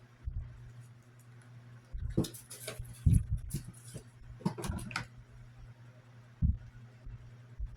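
Close handling noises of someone putting on earrings: two clusters of short rustles and small clicks, then a single knock near the end, over a steady low hum.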